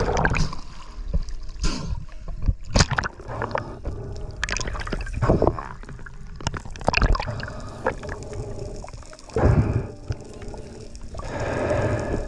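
Muffled underwater sound picked up by a diving camera: a steady rumbling wash of water with irregular sharp clicks and knocks scattered through it.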